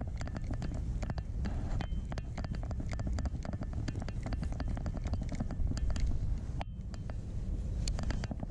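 Wind buffeting the microphone as a steady low rumble, with many small rapid clicks from a Daiwa Crest 3000 spinning reel being cranked to retrieve line. The clicks pause briefly about two-thirds through.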